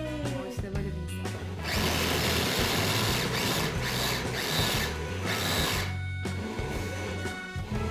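A personal blender and an electric food chopper running together, grinding a thick mixture of burgers, pickles, onions and sauces. The motor noise is loudest from about two to six seconds in, then eases to a lower steady whine.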